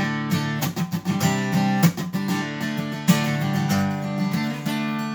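Acoustic guitar strumming chords in a steady rhythm: the instrumental break of a country-pop song, with no vocal.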